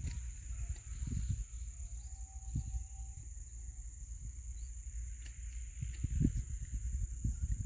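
Steady high-pitched drone of insects from the pond-side vegetation, over a low uneven rumble on the microphone.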